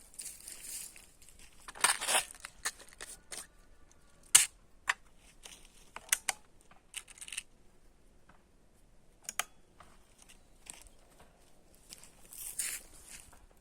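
Handling noise: scattered clicks and rustling, with a sharp click a little over four seconds in.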